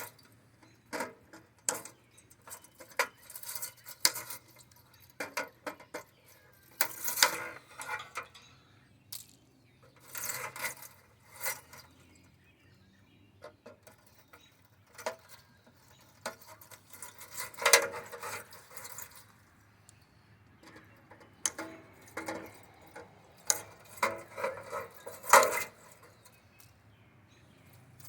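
Hand tools clicking, snipping and clinking against an air conditioner's metal housing and wiring as the wires are cut out. The sounds come in irregular short spells, with a few louder clanks.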